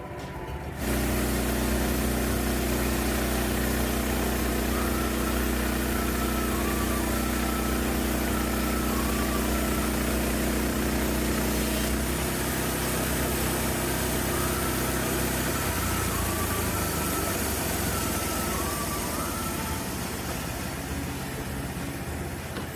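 An engine running steadily with a broad hiss over it, starting abruptly about a second in; its pitch steps down about halfway and again a few seconds later.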